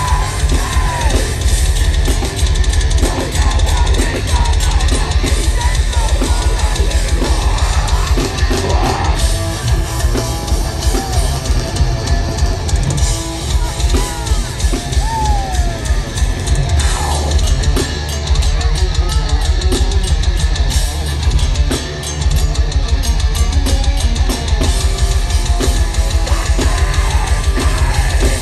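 Heavy metal music with fast, dense drumming and guitar.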